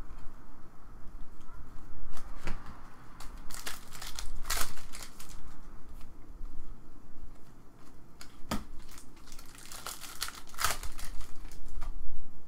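Foil trading-card pack wrapper crinkling and cards being shuffled by hand, in irregular rustling bursts.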